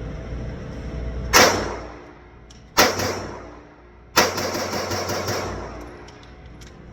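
Gunfire on a shooting range: two single shots about a second and a half apart, each with a long echoing tail, then a quick string of shots lasting about a second.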